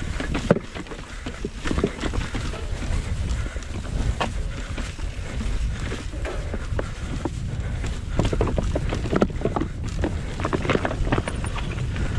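Mountain bike descending a rough, rocky trail at speed: wind rumbling on the camera's microphone, with frequent knocks and rattles from the tyres striking stones and the bike shaking over them.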